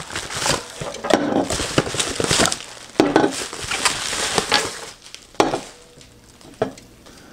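Plastic bubble wrap crinkling and rustling as it is pulled off and handled, with sharp knocks of aluminium drink cans being set down on a countertop. The crinkling thins out after about five seconds, leaving a couple of separate knocks.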